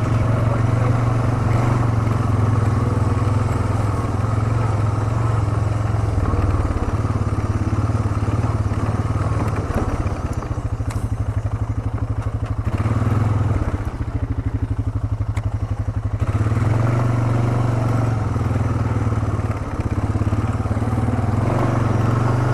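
ATV engine running steadily as the quad rides along a trail. It eases off for a few seconds around the middle, then picks back up.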